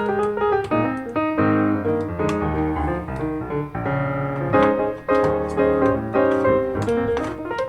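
Background piano music, a run of quick notes.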